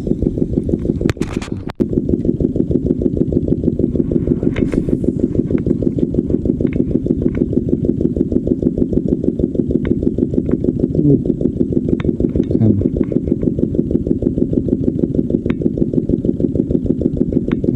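An engine running steadily with a fast, even throb, and a couple of sharp knocks about a second and a half in.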